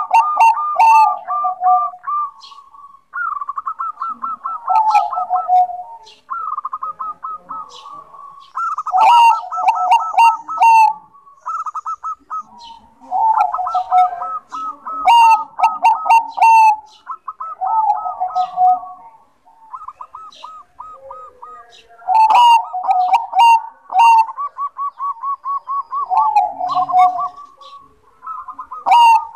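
Zebra dove (Bangkok perkutut) singing its song over and over. Each phrase is a quick run of clipped notes that slides into lower cooing notes, and it repeats every two to three seconds, with sharp high chirps over some phrases.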